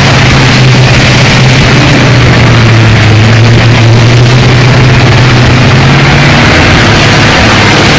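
Heavy off-road truck engine running loud and steady. Its pitch sags a little about two seconds in and climbs back near the end.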